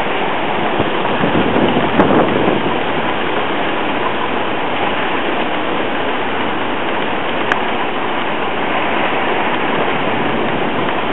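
Heavy hurricane rain and wind, a dense steady rush of water that swells briefly about two seconds in, with one small click a little past seven seconds.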